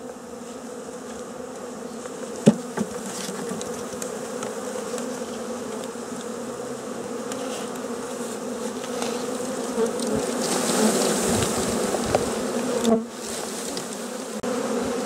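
A mass of honeybees buzzing as a package of bees is shaken out into a hive box: a steady hum that grows louder as more bees spill out and take to the air. A single sharp knock comes about two and a half seconds in.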